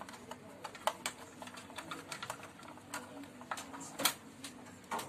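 Irregular clicks and light knocks of hands working on a Juki MB-1377 button-sewing machine, the sharpest click about four seconds in, over a faint steady hum.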